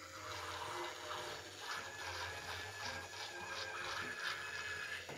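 Small battery-powered handheld facial device running with a faint steady whir while held against the face, with soft, even rubbing ticks through the middle.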